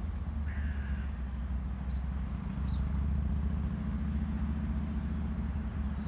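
Steady low rumble, with a brief high chirp about half a second in.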